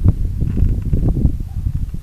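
Low rumble with irregular crackling and rustling against the microphone, as from wind or handling noise.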